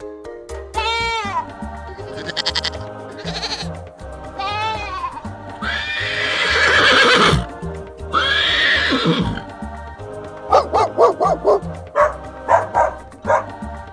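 Several animal calls over cheerful background music: wavering, falling cries early on, two long loud calls in the middle, then a quick run of short pulsed calls near the end.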